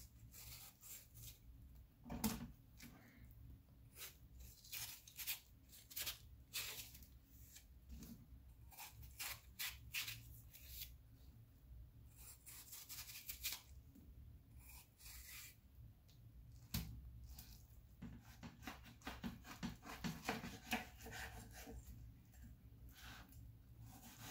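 Kitchen knife cutting and scraping the rind off watermelon pieces in short, irregular strokes, with a few louder cuts.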